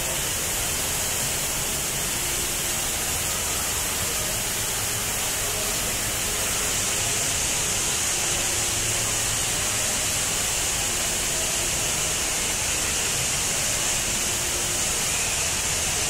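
HSBC Rain Vortex indoor waterfall, a column of water falling from the roof's oculus into the pool below, making a steady rush of water with a strong hiss.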